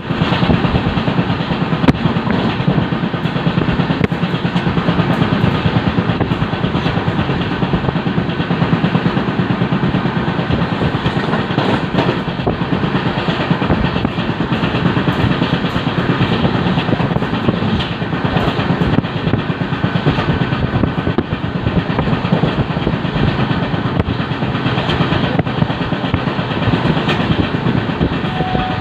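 Indian Railways LHB passenger coach running at speed on the track: a steady rumble and rattle of wheels on rail, with many small clicks and knocks all through.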